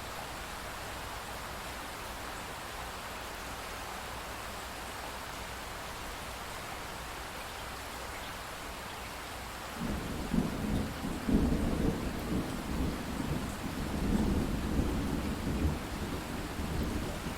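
Steady rain hiss. About ten seconds in, a long low rumble of thunder starts and keeps rolling, swelling and fading.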